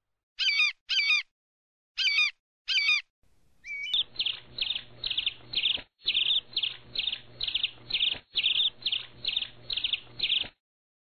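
Bird calls: four short warbling calls in two pairs, then a pause, then a run of rapid repeated calls, about two a second, over a faint hiss. The calls stop about a second before the end.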